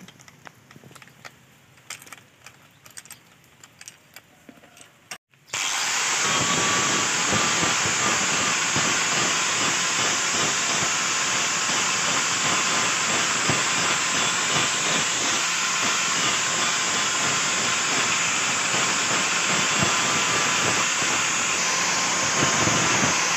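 Faint clicks and taps at first. About five seconds in, a handheld electric angle grinder with a sanding disc starts abruptly and runs steadily, sanding a wooden knife handle.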